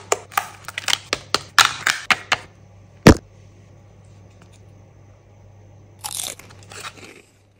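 Foil candy-egg wrapper crinkling and tearing as it is peeled off in a quick run of crackles, then one loud sharp snap of the plastic egg being pulled open about three seconds in. A brief rustle comes about six seconds in.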